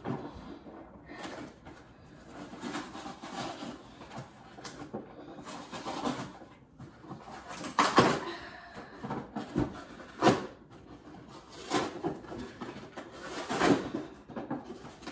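Packaging being handled and pulled open by hand: irregular rustling and scraping, with three sharper, louder snaps or rips about eight, ten and thirteen and a half seconds in.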